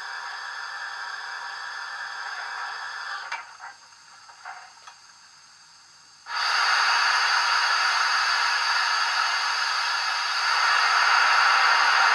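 Steam hiss from a Hornby 8F model locomotive's DCC sound decoder, played through its small speaker. A steady hiss stops about three seconds in, a few short hisses and clicks follow, then after a quiet pause a louder hiss starts suddenly and grows louder again near the end.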